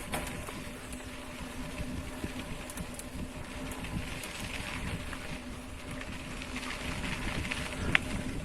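Wind buffeting the microphone while riding on a dirt road, over a steady low hum, with a sharp click near the end.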